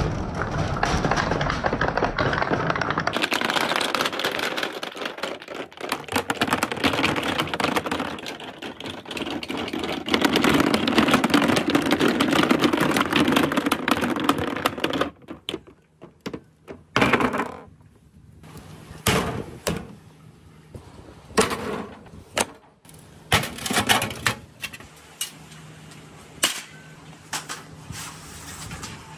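A crowd of large balls and marbles rolling together down a wooden marble-run chute, a dense, continuous rattle for about fifteen seconds. After that it thins to scattered sharp clacks and knocks as single balls strike one another and drop into the tub.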